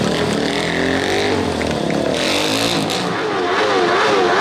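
Sport quad bike's engine revving hard during a stunt wheelie, its pitch sliding up and down, with a short tyre screech about two seconds in. Near the end the revs rise and fall in quick, regular waves.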